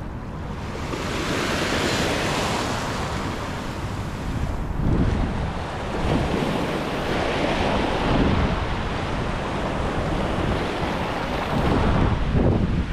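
Small waves washing in over shallow sand, surging every few seconds, with wind buffeting the microphone.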